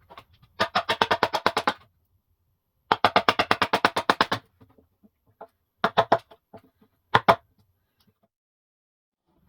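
Two runs of rapid sharp knocking, about ten knocks a second and each over a second long, followed by a few separate knocks.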